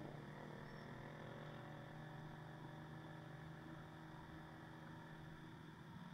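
Motorcycle engine running at low revs in slow traffic, a faint steady hum with a slight rise in pitch in the first second or two.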